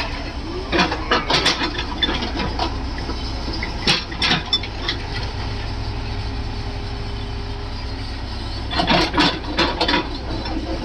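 Backhoe loader's diesel engine running with a steady low rumble, broken three times by short bursts of knocks and clanks: about a second in, around four seconds in, and near the end.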